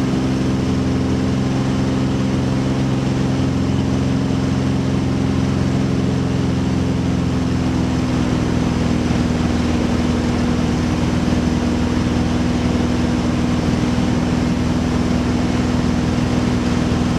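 Beechcraft Bonanza H35's six-cylinder Continental O-470 engine and propeller droning steadily in the cockpit, a constant hum of several steady tones.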